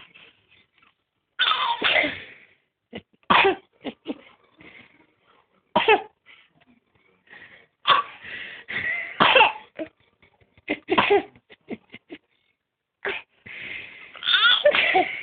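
A string of sharp sneezing bursts, a second or two apart, some coming in quick pairs, with a longer run of them near the end.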